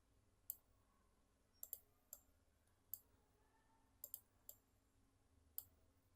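Computer mouse clicking: about nine faint, sharp clicks, a few of them in quick pairs.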